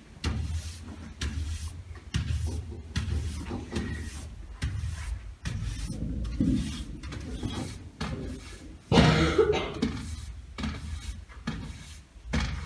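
Push broom sweeping a wooden stage floor in short strokes, about one a second, with one louder sound about nine seconds in.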